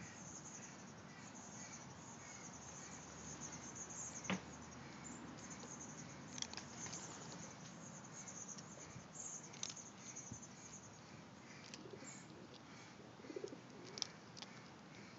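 Quiet outdoor ambience with faint bird chirps and a few soft, short clicks scattered through it.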